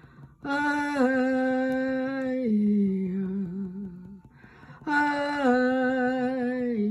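A woman's voice chanting in long held tones, two phrases with a breath between them; each phrase starts on a higher note and steps down to a lower one that it holds.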